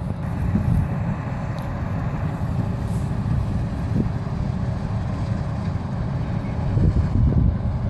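Heavy farm machinery engine running steadily: a continuous low rumble with a faint steady hum above it.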